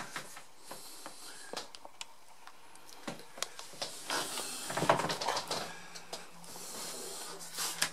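Handling and movement noise in a small shower room: scattered light clicks and knocks with rustling, and a louder swish about five seconds in. A faint steady hum comes in a little after that.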